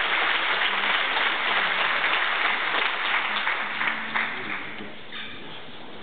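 Audience applauding in a concert hall, the applause dying away about four and a half seconds in.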